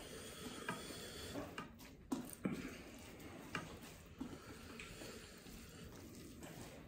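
A hand mixing cooked rice with red lentil dal on a plate: faint, soft squishing, with a few light clicks scattered through.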